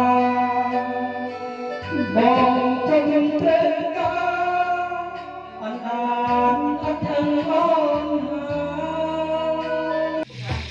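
Background music: a song with a held, wavering sung melody over sustained bass notes. Near the end the music cuts off and a sizzling noise begins.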